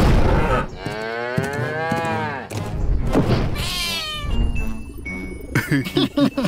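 A cartoon creature's wordless vocal sounds over background music. After a thump at the start comes one long drawn-out call that rises and falls in pitch, then a short falling glide near the middle.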